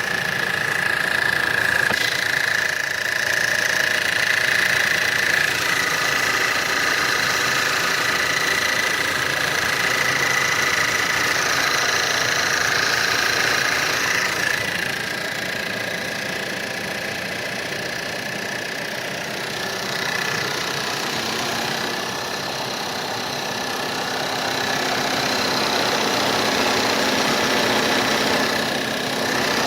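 1.8 TSI turbocharged four-cylinder petrol engine idling from cold, with a knock that shows only while the engine is cold. A steady high whine runs over the idle and drops somewhat in level about halfway.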